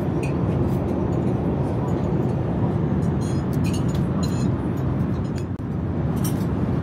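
Steady low roar of an Airbus A380 cabin in cruise flight, with a few light clicks in the middle and near the end.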